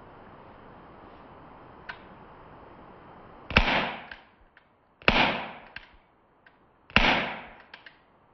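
Toy cap revolver firing three caps, each a sharp bang with a tail that dies away over most of a second, spaced about a second and a half to two seconds apart. A few small clicks follow each shot, and a single faint click comes about two seconds in.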